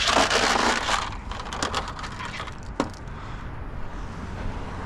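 Handling noise as the power cord is taken off a discarded tower fan: a burst of rustling and scraping in the first second, then a single sharp snap a little before three seconds in, over a low steady rumble.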